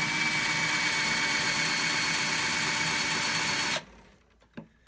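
Power drill boring a hole through wood, running steadily at full speed with the bit in forward. It stops a little before four seconds in, followed by a few faint knocks.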